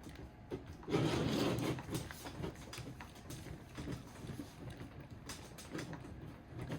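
Small plastic kit parts and tools being handled and worked on a workbench: a brief scraping rustle about a second in, then scattered light clicks and rubs.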